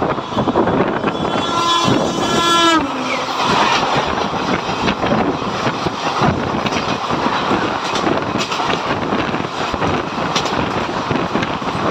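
An oncoming Indian Railways express train passing close by on the next track. Its horn sounds for about a second and a half and drops in pitch as it goes by. Then the rush and rattle of its coaches running past take over, on top of the wind and track noise of the train being ridden.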